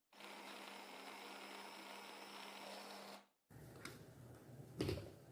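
Faint room tone: a steady low hum under an even hiss, broken twice by short dead-silent gaps, with a few faint soft knocks near the end.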